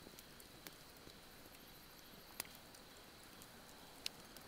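Near silence broken by a few faint, sharp pops from a burning wood fire, the clearest about halfway through.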